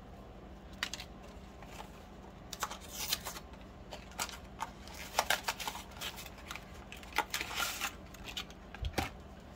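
Paper packets of unflavored gelatin rustling and crinkling as they are handled and opened, in short scattered bursts, with a low thump near the end.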